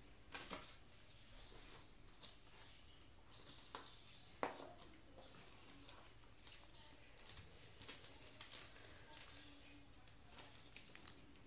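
Phone packaging being handled: irregular rustling and clicking of the box insert and plastic-wrapped accessories, busiest and loudest about two-thirds of the way through.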